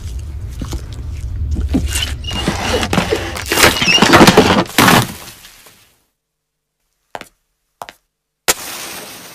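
Film soundtrack sound effects: a low rumble under a swelling clatter of cracks and thuds that builds to a peak and then dies away, followed by silence with two short clicks and a new sound starting near the end.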